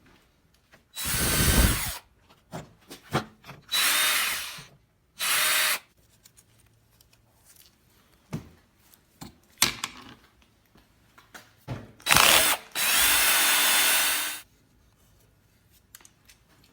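Power drill-driver run in five short bursts, the last the longest, backing out the bolts that hold the carburetor on a small push-mower engine. Small clicks and knocks of handling sit between the bursts.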